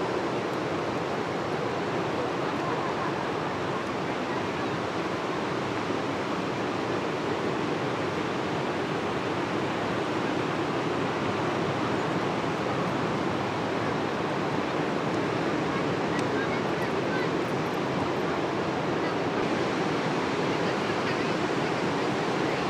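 Ocean surf washing onto a beach: a steady, even rush of noise with no single loud crash standing out.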